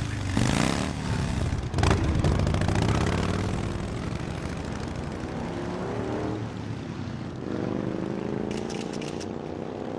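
Motorcycle engine accelerating away, loud at first, its pitch climbing, then dropping about six seconds in at a gear change and climbing again.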